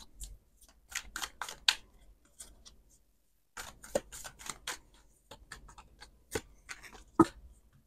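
A deck of tarot cards being shuffled by hand, the cards slipping and slapping against each other in quick papery clicks. There is a short pause near the middle and one sharper snap near the end.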